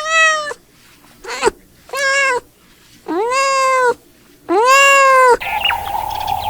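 Domestic cat meowing repeatedly: five meows, each rising then falling in pitch, the later ones longer. Near the end the meowing stops and a steady hiss with a short chirp takes over.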